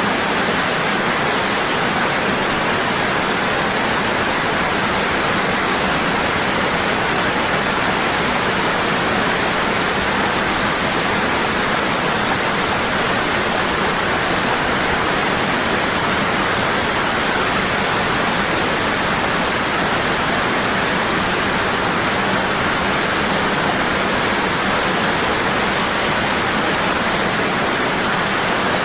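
Waterfall, water falling strong and steady in an unbroken rushing hiss.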